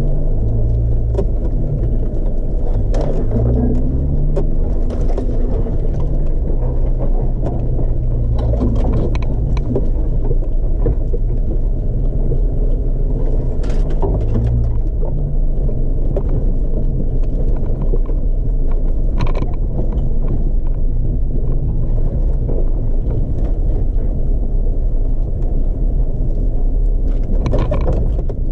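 4x4's engine running steadily as it drives slowly along a trail, heard from inside the vehicle, its pitch shifting a little now and then. Scattered knocks and rattles come through from the bumpy ground, with a cluster of them near the end.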